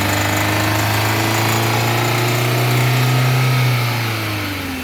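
Toyota 4E four-cylinder engine running with an abnormal noise, which the mechanic attributes to a worn main bearing. The engine speeds up slightly midway and drops back near the end.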